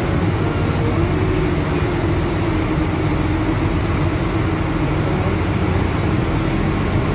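Diesel engines of a Baja Aqua 54 motor yacht running under way, heard from the helm station as a steady, loud drone mixed with the rush of wind and water.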